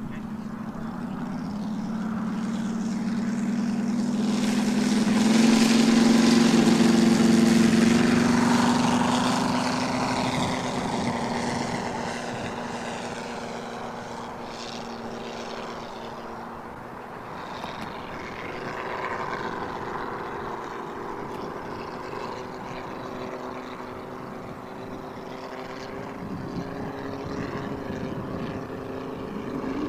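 Engine and propeller of a large-scale radio-controlled warbird model running up for takeoff, its note rising in pitch and loudness over the first several seconds. It is loudest as the plane passes, then drops in pitch and settles into a steadier drone as it flies away.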